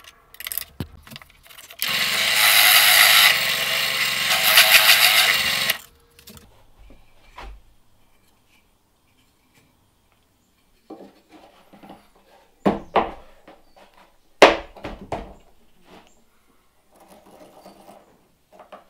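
Drill press running and boring into a wooden board with a Forstner bit for about four seconds, starting about two seconds in, then switched off and coasting down. Later come a couple of sharp knocks of wood being handled.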